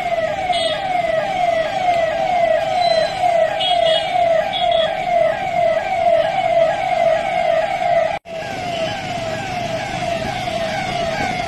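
Police vehicle siren sounding a fast, repeating rising sweep, breaking off for an instant about eight seconds in.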